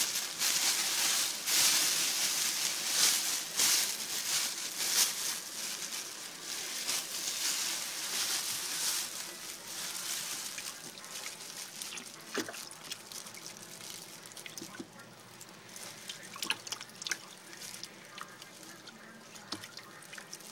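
Water splashing and sloshing as hands rub the charred skin off roasted poblano chiles in a plastic tub of water. It is dense and loud for about the first half, then thins to scattered drips and small splashes.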